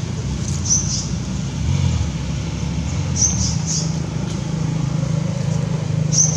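A low, steady engine hum, with short high-pitched squeaks every second or two.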